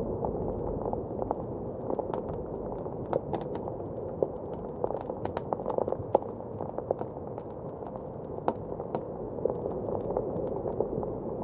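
Wood fire crackling, with irregular sharp snaps and pops that come thickest in the middle, over a steady rush of blizzard wind.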